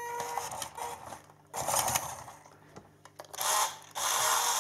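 Toy-grade steering motor of a WPL B-24 RC military truck buzzing in four short bursts as the click-type steering is driven to full lock. It is incredibly noisy, louder on full lock than the drive motor.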